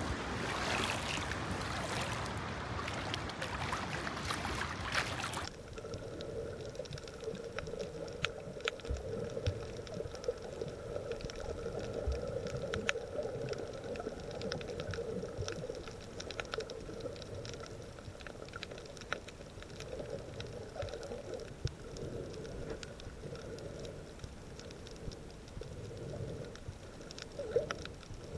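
Rushing wind and water noise at the shoreline, which cuts off about five seconds in. It gives way to the muffled sound of a camera underwater on a coral reef: a steady low hum with many faint scattered clicks and crackles.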